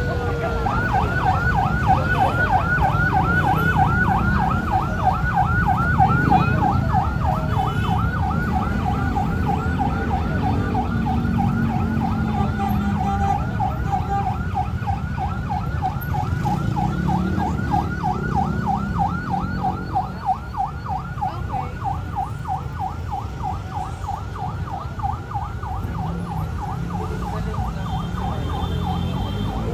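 Electronic siren in yelp mode: a quick rising sweep repeated several times a second, steady and unbroken, over a low rumble.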